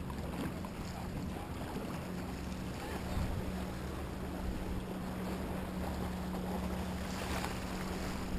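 Swirling tidal current rushing around a paddleboard, with wind buffeting the microphone: a steady rushing hiss.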